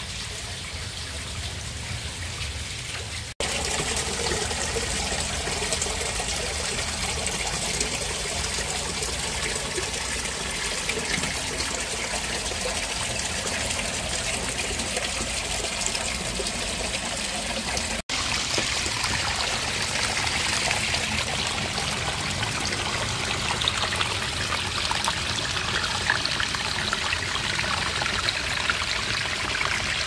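Shallow water trickling and running over sandstone rock in a small waterfall: a steady rush of water, broken by two abrupt cuts, about three seconds in and again a little past halfway, getting louder after the first.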